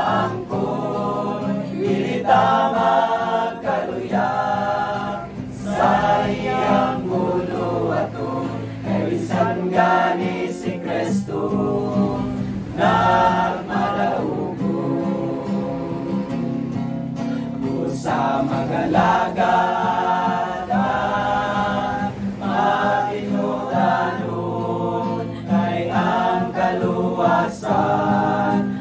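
Male choir of young men singing a Christian song in Cebuano in harmony, with an acoustic guitar.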